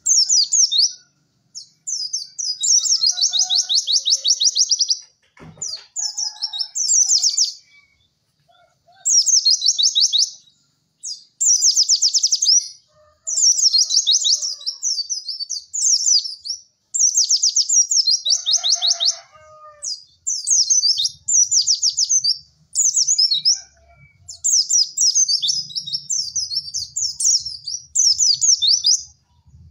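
White-eye (pleci) singing: bursts of rapid, high, chattering notes, each one to two seconds long, repeated with short pauses between.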